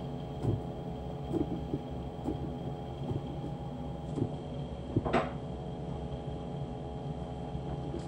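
A steady electric machine hum, like a kitchen appliance motor running, with scattered light knocks and one sharper clatter about five seconds in.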